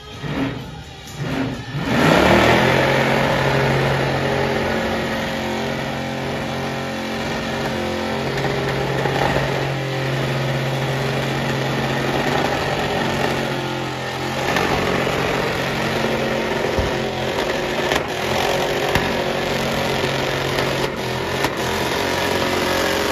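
Supercharged engine of a Chevrolet Silverado pickup revving hard through a burnout, with its rear tyres spinning in smoke. A few short blips of the throttle at first, then about two seconds in it is held at a steady high pitch, easing off briefly about two-thirds of the way through before climbing back.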